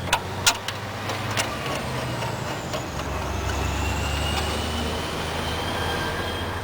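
A few sharp clicks in the first second and a half. Then a motor vehicle passes by: its low rumble swells toward the middle and fades, with a faint, slowly rising whine above it.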